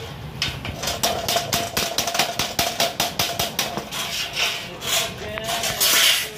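Hand tools working thin galvanized steel furring channels: an irregular run of sharp metallic clicks and knocks, several a second, with a brief louder rasp near the end.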